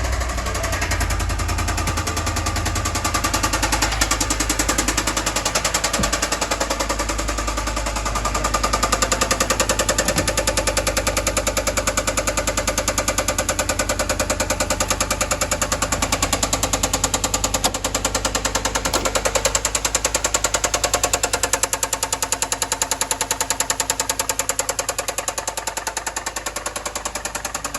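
2013 Ford F-150's 6.2-litre V8 running with a loud, rapid, regular knock from the engine, which the mechanic puts down to a connecting rod, with the oil pressure reading low.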